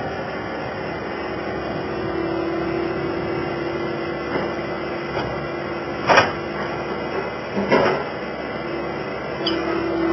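Skid steer loader running steadily, with two sharp knocks about six and eight seconds in and a lighter one near the end.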